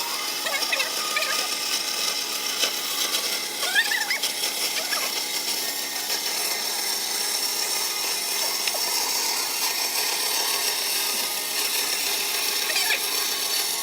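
Power tool running steadily in a woodworking shop, with faint voices in the background.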